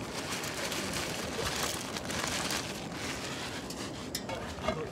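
Plastic bag rustling as the last rice is shaken out of it into a pot of steaming water, over a steady soft hiss; a few light clicks near the end.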